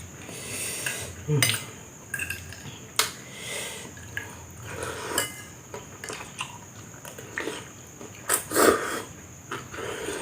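Cutlery clinking and scraping against a dish during eating: a string of irregular sharp clicks, loudest near the end.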